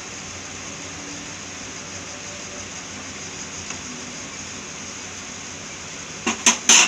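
Steady background hiss, then three sharp knocks near the end, the last the loudest.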